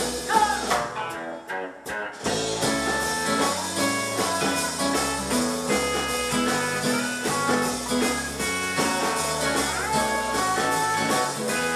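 Live band playing an instrumental break, an electric guitar taking the melody over a walking bass line. The music thins out briefly about a second and a half in, then comes back full.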